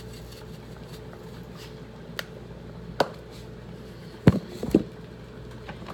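Spice containers being handled at a kitchen counter: a couple of light clicks, then two louder knocks close together a little past the middle, as a container is set down and another picked up.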